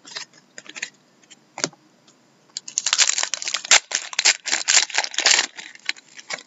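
A few light clicks of trading cards being handled, then a 2013-14 Upper Deck Black Diamond hockey card pack's foil wrapper being torn open and crinkled by hand for about three seconds, starting a little over two seconds in.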